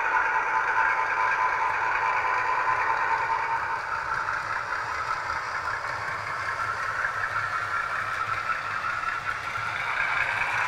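Sound-fitted Heljan Class 52 Western model diesel locomotive running past, its ESU LokSound 5 decoder playing diesel engine sound through the model's small speaker over the rolling of wheels on the track. It grows quieter after about four seconds as the loco moves away and the coaches go by.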